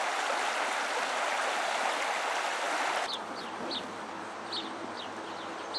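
Flowing stream water rushing steadily; about three seconds in it gives way to quieter outdoor ambience with a faint low hum and a bird chirping several times.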